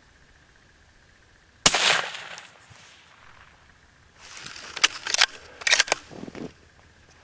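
A single hunting-rifle shot about one and a half seconds in, with a short echoing tail. A few seconds later, a quick run of sharp clicks and knocks from handling the gun.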